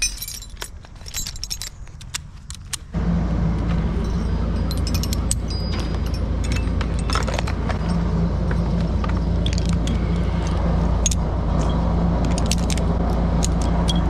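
Metal climbing hardware (carabiners and harness fittings) clinking and jangling as a climber gears up. About three seconds in, a steady low drone starts abruptly and runs on under the clinking, louder than it.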